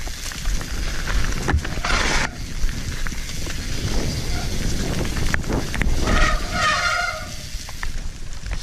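Mountain bike descending a dirt trail, heard from the bike-mounted GoPro: a constant low rumble of tyres and wind on the microphone with scattered rattles and knocks from the bike, and a short hiss about two seconds in. About six seconds in, a wavering pitched howl lasts about a second.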